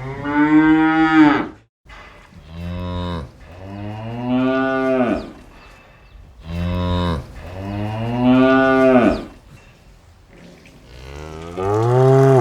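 A cow mooing, about six moos in a row, each a second or so long and rising then falling in pitch.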